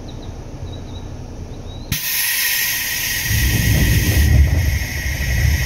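Aboard a Seibu 2000 series electric train, compressed air suddenly lets out in a loud, steady hiss about two seconds in. About a second later a low rumble rises under it.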